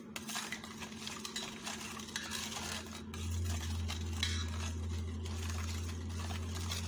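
Metal spoon stirring coconut milk in a metal bowl, scraping and lightly clinking against the sides as the sugar and salt are stirred in to dissolve. A low steady hum comes in about three seconds in.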